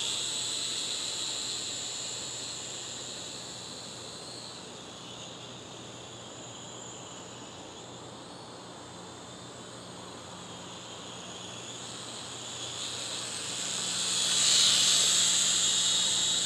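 Striker toy quadcopter's small motors and propellers whining at a high pitch that wavers with the throttle, fading as it flies off and growing louder again near the end as it comes back close.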